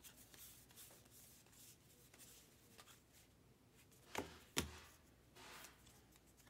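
Baseball trading cards being handled and flipped through one by one: soft slides and rustles of card stock, with two sharper clicks about four seconds in and a brief swish just after.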